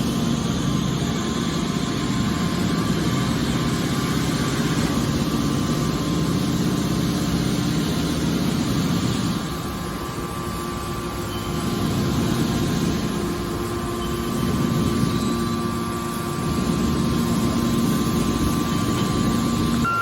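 Hydraulic scrap metal baler running: a steady machine hum from its motor and hydraulic pump, easing slightly twice along the way.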